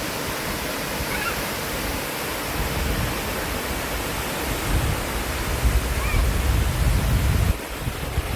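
Waterfall's rushing water, a steady hiss. A low rumble builds up in the middle and cuts off suddenly near the end.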